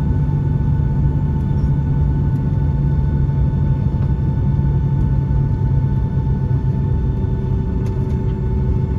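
Boeing 757-200 jet engines at taxi idle, heard inside the cabin over the wing: a steady low drone under a constant whine, with a few faint ticks near the end.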